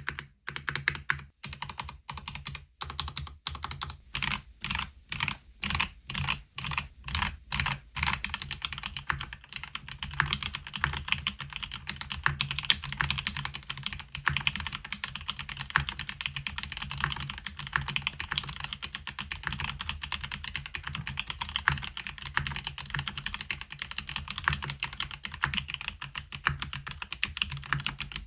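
Typing on a MelGeek Mojo68 mechanical keyboard with a plastic case, Gateron Brown tactile switches and ABS double-shot keycaps: a light, crisp plastic clack. First come separate single keystrokes, then from about eight seconds in, continuous fast typing.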